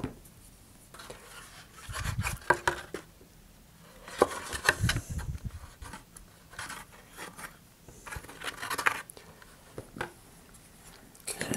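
Wooden dowel scraping and rubbing against the inside of a paper model-rocket body tube in several short bouts as glue is smeared around, with a knock of something set down on the workbench right at the start.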